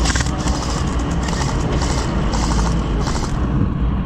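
Truck engine and drive rumble heard from on board the moving truck, with a run of short hissing bursts about every half second that stop about three seconds in.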